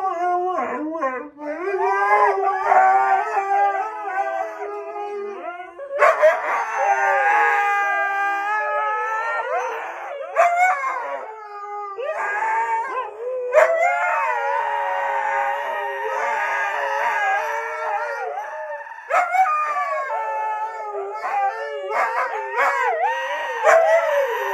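Several huskies howling and yowling together in long, wavering calls that overlap at different pitches, in several bouts with short breaks.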